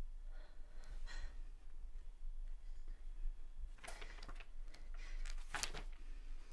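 A woman's tearful breathing, with a few sharp gasping intakes of breath, and the rustle of paper sheets being handled.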